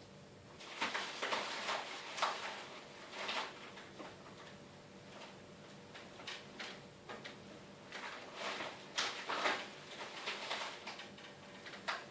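Irregular series of clicks, knocks and scraping sounds like drawers or doors being moved, clustered in two bunches with a sharp click near the end, over a faint steady hum.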